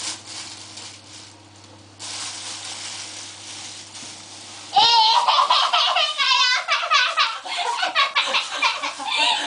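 Soft rustling over a low steady hum, then, about five seconds in, a sudden burst of loud, high-pitched laughing and squealing that keeps going in rapid bursts: a startled reaction to a surprise.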